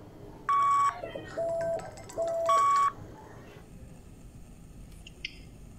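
Phone call ringing: four short electronic tones, high, low, low, high, as the alarm panel's call comes through to the mobile phone. The ringing stops about three seconds in when the call is answered.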